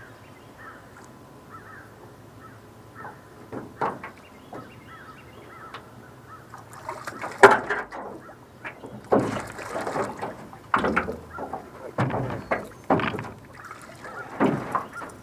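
Handling noise in a small fishing boat: irregular knocks, bumps and splashy rustles, sparse at first and coming thick and loud in the second half.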